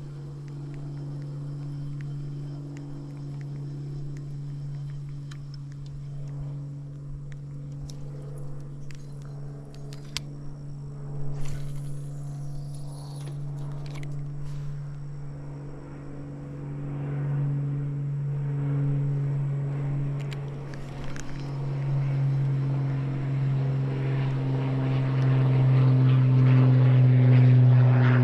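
Propeller airplane engine with a steady low tone, growing louder toward the end as it comes closer. A few light clicks and a short hiss around the middle.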